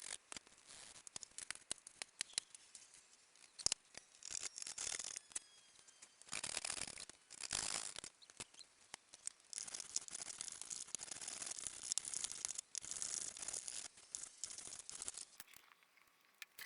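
Workshop handwork on wood trim: sharp clicks from a pin nailer driving in thin strips, mixed with short stretches of hissing noise.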